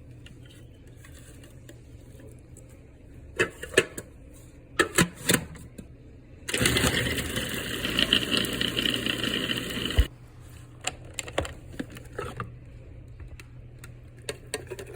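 A few knocks and clatters, then an electric kitchen appliance motor runs loudly for about three and a half seconds and cuts off suddenly, shredding a batch of cooked chicken.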